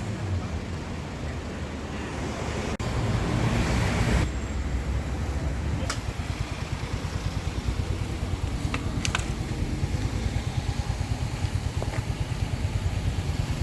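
A motor engine running with a steady low rumble, which takes on a fast, even pulsing from about halfway through.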